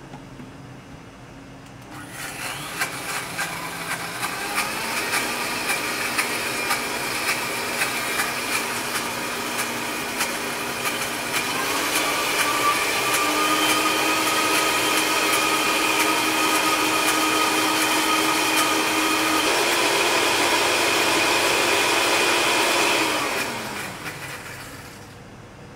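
Countertop blender puréeing basil pesto (basil, parsley, garlic, pine nuts, almonds and olive oil). The motor starts about two seconds in with pieces clattering against the jar at first. Its whine steps up in speed twice, runs steady at full speed, then winds down with a falling pitch near the end.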